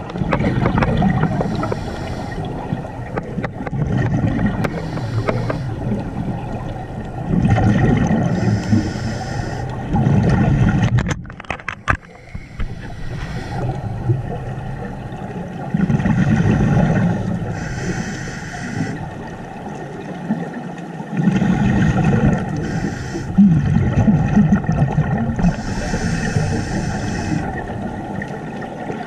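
Scuba regulator breathing heard underwater through a camera housing: hissing inhalations alternating with bubbling, rumbling exhalations, cycling over several breaths, with a brief crackle about midway.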